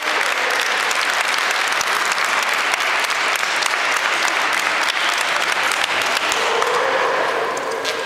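Spectators clapping steadily, a dense applause that eases off near the end.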